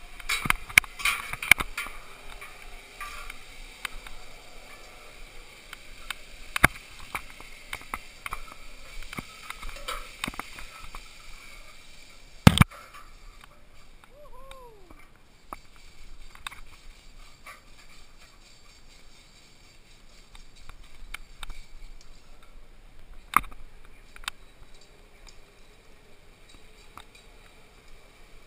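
Metal clicks and clanks of carabiners and lanyard clips knocking against a steel ladder and cables while climbing, thickest in the first couple of seconds, with single sharp knocks about twelve and twenty-three seconds in.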